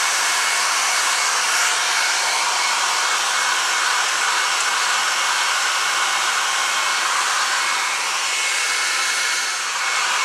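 Handheld hair dryer running steadily, a continuous rush of blowing air with a faint steady whine, drying a freshly mounted squirrel's fur and fluffing it up.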